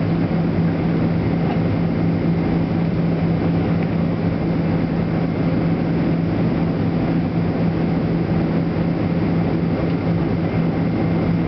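Steady cabin roar of a Boeing 767-300ER in flight, heard from a window seat beside the engine, with a constant low hum under the rushing noise.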